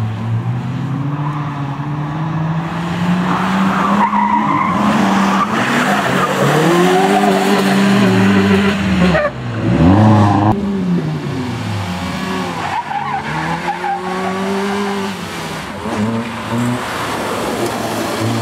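Peugeot 106 rally car's engine driven flat out, its note climbing under acceleration and dropping at gear changes and lifts for corners, with a sharp drop and pick-up about halfway through. Tyres squeal through the corners.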